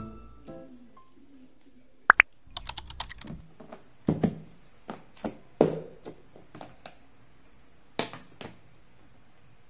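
A plastic food-storage box being handled on a countertop. Two sharp snaps and a quick run of small clicks as the lid is worked off, then several separate knocks and thunks as the box is set down and shifted.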